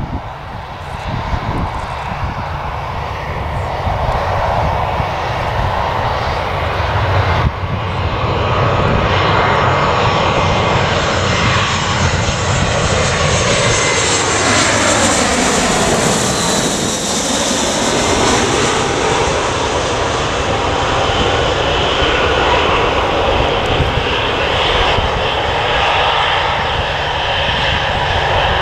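Aircraft engines of a plane passing close by. The roar builds over the first several seconds and then stays loud, with a sweeping swish in the tone that turns about halfway through as the plane passes closest.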